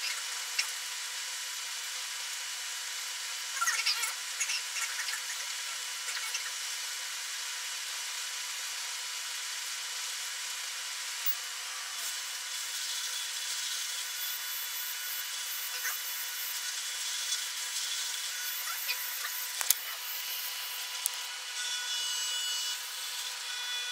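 Robotic cooking station at work, its stirring arm and induction cooker heating a pot of instant noodles: a steady hiss with a few faint high tones, broken by occasional clicks.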